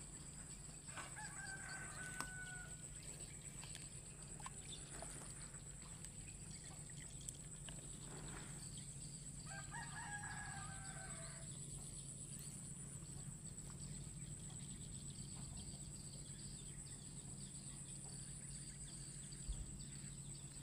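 A rooster crowing twice, faint: once about a second in and again about halfway through.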